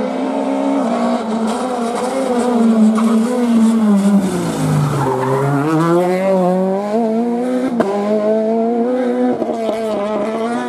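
Peugeot 208 rally car engine slowing into a hairpin, its revs falling to a low point about halfway, then accelerating out with the revs climbing through gear changes. There is a sharp crack about eight seconds in.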